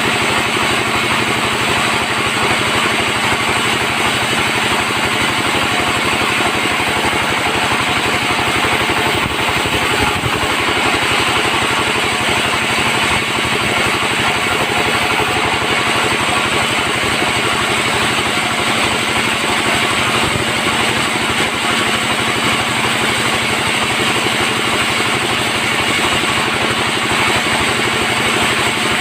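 Sawmill bandsaw running with a steady, unbroken machine drone.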